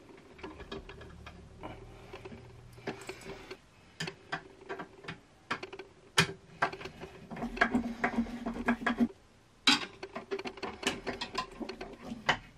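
Shelf brackets being screwed to the wall by hand: a run of small irregular clicks and ticks from the screwdriver and the metal brackets.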